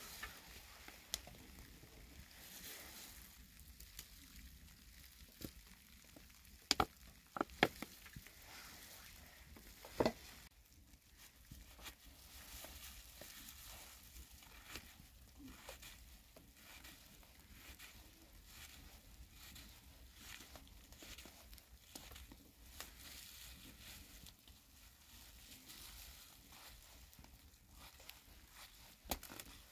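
Faint cooking and handling sounds: a knife cutting onions on a wooden stump, with light, scattered ticks and crackles. A few louder sharp clicks come in the first third.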